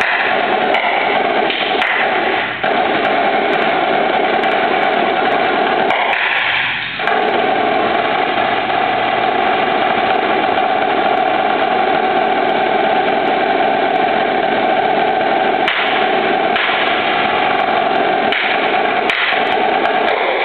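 Marching snare drum played with sticks in a fast, dense stream of rolls and rudiments, with two short breaks at about two and a half and seven seconds in.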